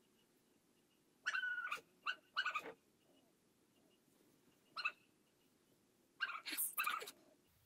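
A dog barking and yelping in short high-pitched calls, in four clusters, heard at three times playback speed.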